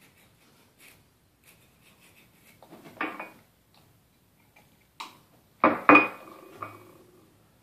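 Ceramic cup knocking and clinking against a stone countertop as a small child lifts it to take a mouthful of rinse water and sets it back down. There are a few separate knocks, the loudest near the end.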